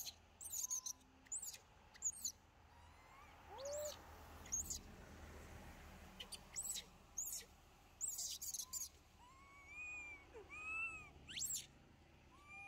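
Young long-tailed macaques calling: many short, shrill squeaks, with a few short arching coo calls in the last few seconds.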